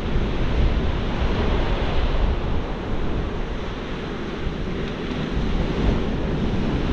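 Sea surf breaking and washing on a pebble beach, a steady rush of waves, with wind buffeting the microphone.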